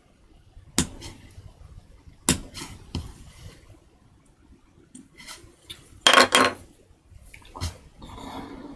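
Small hand carving tool working a woodblock: a string of sharp clicks and clacks a second or so apart, the loudest a quick cluster about six seconds in, followed by a softer rustle near the end.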